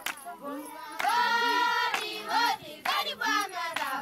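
High voices singing and calling out, one voice holding a long high note for about a second, with a few sharp clicks among them.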